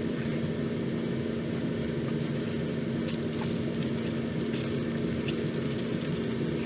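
A steady machine hum holding one constant pitch with an overtone, with small scattered clicks and rustles over it.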